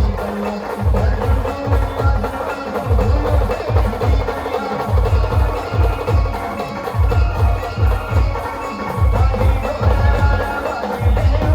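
Brass band music: brass horns holding a melody over runs of rapid, heavy bass drum strokes.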